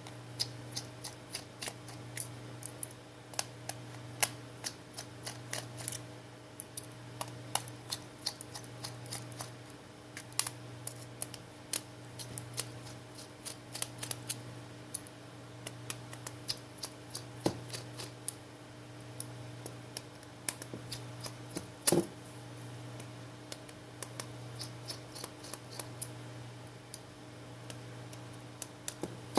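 Irregular small clicks and ticks of a precision screwdriver backing out the tiny screws on the back of a smartphone, with one louder knock about two-thirds of the way through. A steady low hum lies underneath.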